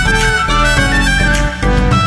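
Instrumental background music with many quick changing notes over a strong bass.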